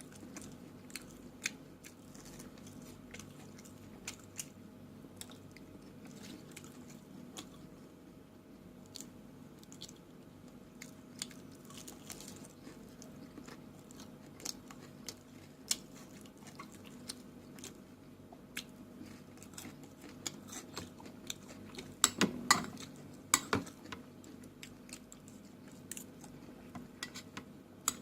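A person chewing and crunching food close to the microphone, with many sharp wet mouth clicks over a low steady hum. A louder cluster of clacks comes a little past the three-quarter mark.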